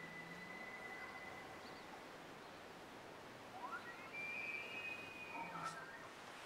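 Bull elk bugling, a rut call: a whistle that rises, holds high and steady for about a second and a half, then breaks into lower notes. A fainter high whistle at the start fades out about a second and a half in.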